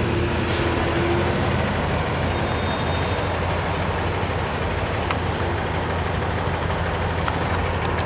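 Road traffic: a steady low diesel engine hum and tyre noise from a box truck and cars passing close by.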